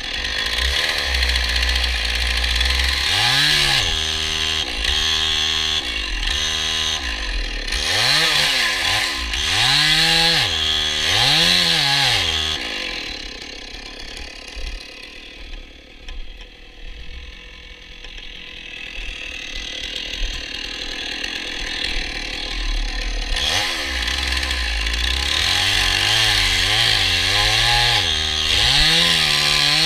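Stihl chainsaw running in repeated bursts of throttle, its pitch rising and falling about five times, then dropping to a low idle for several seconds midway. It then runs up again and holds at high speed near the end while cutting into a large burned tree trunk to fell it.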